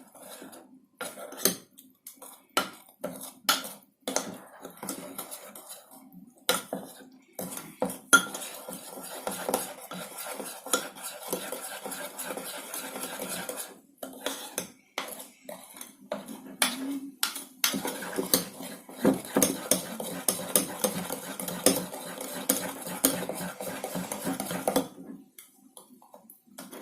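A spoon stirring thick cocoa cake batter in a dish, clinking and scraping against its sides. The clinks come irregularly at first, then run together into steadier scraping and clinking through the middle, stopping about two seconds before the end.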